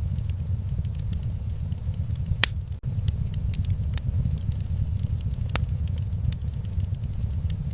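Wood fire in a fireplace crackling over a steady low rumble, with frequent small clicks and a sharp, louder pop about two and a half seconds in and another past five seconds.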